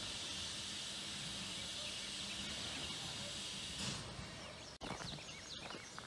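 A Shay steam locomotive hissing steadily as it stands with steam up, with a low steady hum beneath. The hiss breaks off about four seconds in, leaving a quieter stretch with a few faint clicks.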